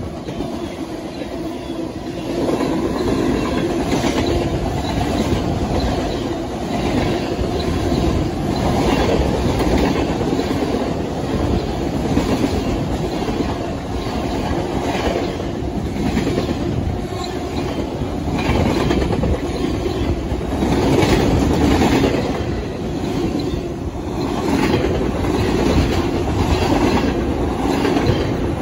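Freight train cars passing close by at speed: a continuous rumble of wheels on rail with a rhythmic clickety-clack as the wheels cross rail joints.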